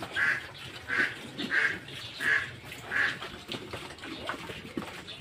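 Farm animal calls: about five short, loud calls evenly spaced a little under a second apart, then fainter scattered sounds in the last two seconds.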